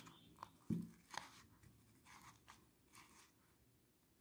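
Near silence with a few faint, short scratches and crinkles: a metal crochet hook pulling thread through stitches on a crochet-covered plastic bottle.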